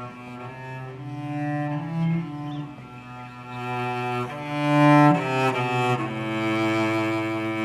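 Cello playing a slow melody in long bowed notes, swelling loudest about five seconds in.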